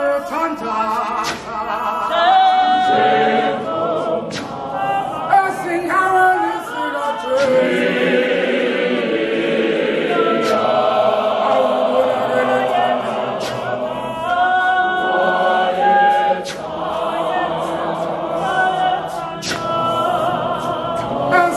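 Church choir of men and women singing a hymn together, many voices at once, with scattered sharp knocks through the singing.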